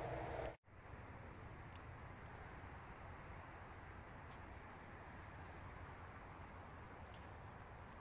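Faint outdoor ambience with a steady high insect chirring, as of crickets or grasshoppers in long grass, over a low hiss. The sound drops out for an instant about half a second in, where two clips are joined.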